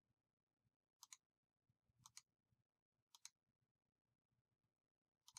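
Faint computer mouse clicks: four quick press-and-release clicks about a second apart, the last near the end.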